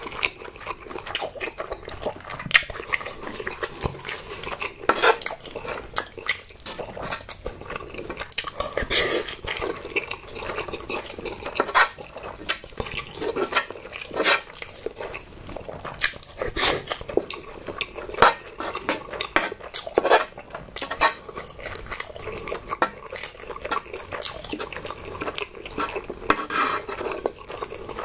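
A wooden spoon scraping and knocking against a large pan as the leftover noodles are gathered up, making irregular clicks and scrapes.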